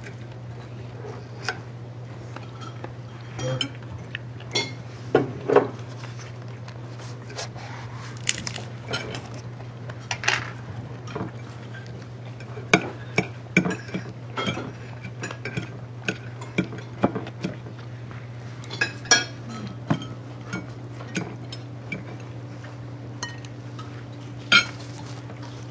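Cutlery clinking and scraping on plates, with irregular small knocks of dishes and a cup being handled, over a steady low hum.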